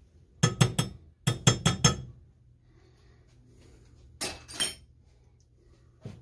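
A metal teaspoon clinking against a glass measuring cup: two quick runs of sharp ringing clinks, three and then four, with two more about four seconds in.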